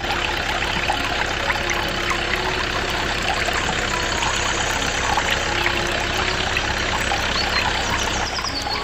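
Water pouring steadily from a small pipe into a shallow metal tank, splashing and bubbling, over the steady hum of the small motor driving the miniature belt-driven water pump.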